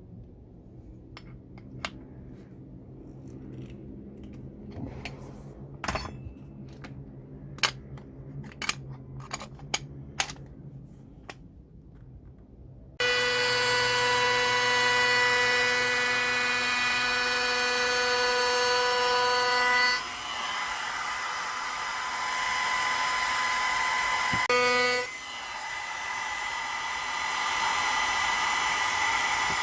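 Scattered sharp clicks and taps of tools being handled. About halfway in, a small high-speed power tool starts with a steady whine, then grinds into the wood with a rougher, noisier sound, apart from a brief return to the clean whine near the end.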